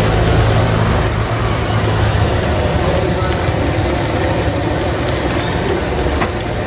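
Steady roar of a gas wok burner firing under a wok of fried rice, with a low hum and street traffic behind it.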